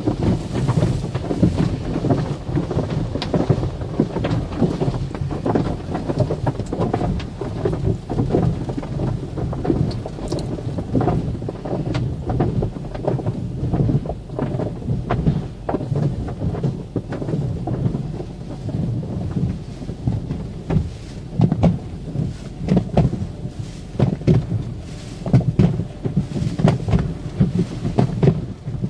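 Car wash running on a car: water drumming on the body as a dense low rumble with frequent sharp slaps.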